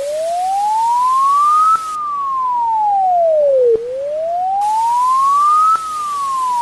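Wailing siren: a single pure tone sweeps slowly up for about two seconds, then back down for two, and the cycle repeats.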